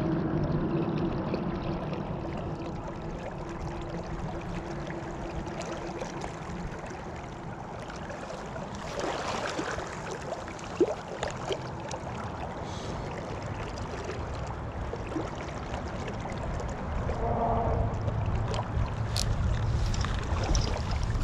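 Flowing river water, a steady rush with a low rumble that grows louder near the end, and a few light clicks about halfway through.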